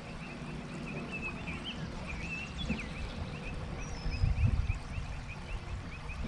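Outdoor background on open water: low wind rumble on the microphone, heaviest in gusts about four seconds in, under a faint, steady, rapid high ticking and a few short high chirps.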